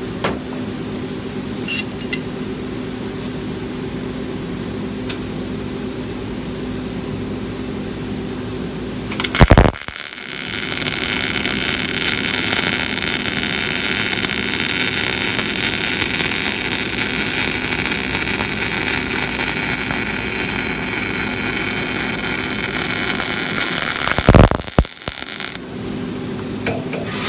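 MIG welding arc on thin rusty steel plate: a steady crackling hiss that starts sharply about ten seconds in and stops about fourteen seconds later. Before and after it, a steady low hum.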